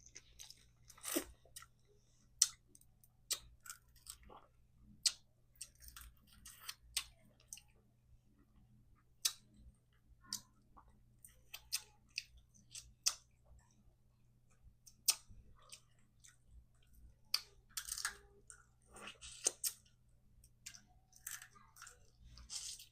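Eating crab legs: quiet chewing with scattered short, sharp clicks and small crunches, spaced irregularly.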